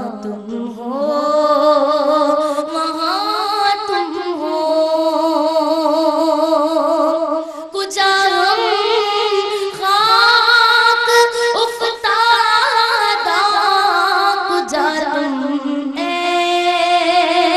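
A woman sings a naat into a microphone without instruments: long, drawn-out phrases with wavering, ornamented held notes. There is a short break for breath about eight seconds in.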